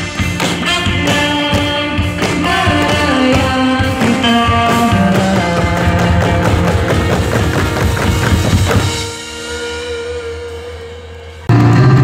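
Live band music with drums and a melody line. About nine seconds in the drums drop out and only softer held notes remain, until a loud new passage starts abruptly near the end.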